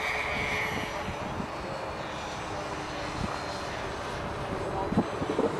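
Electric RC model airplane's motors and propellers whining in flight, with a high tone that fades over the first second. A few brief thumps near the end.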